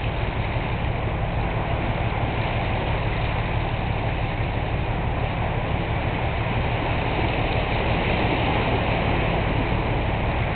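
Cargo ship's engine running under way: a steady low rumble with an even hiss above it.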